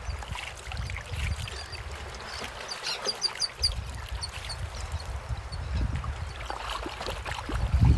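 A gutted fish being dipped and swished in shallow lake water, with trickling and splashing, over a low wind rumble on the microphone. A small bird chirps a quick series of high notes about three seconds in.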